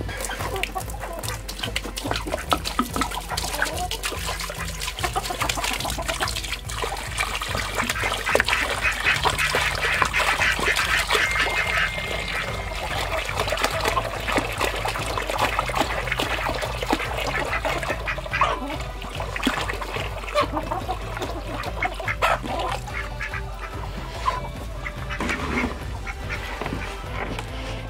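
A flock of ducks quacking and honking. Partway through, water glugs out of a plastic jug into a rubber pan.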